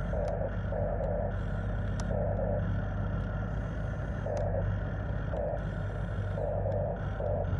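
Small electric gear motors of radio-controlled construction models whirring in short repeated spurts of about half a second, over a steady low hum.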